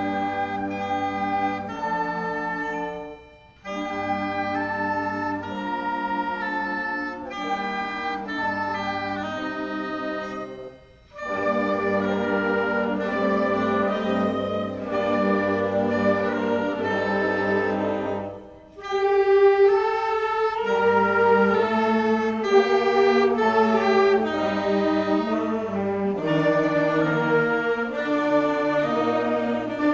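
School concert band playing sustained chords with brass and woodwinds, in phrases that break off briefly three times.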